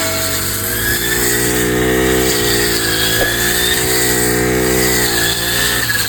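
Kamassu G435T four-stroke brush cutter engine running at high revs, its pitch dipping and recovering about three times as the blade bites into grass.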